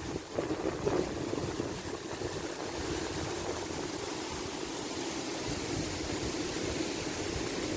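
Small waterfall on the Mirna river, its water rushing steadily, with a few faint knocks in the first second.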